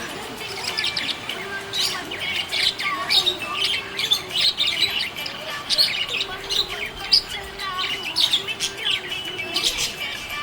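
Small pet parrots chirping and squawking together in a rapid, busy chatter of short high calls.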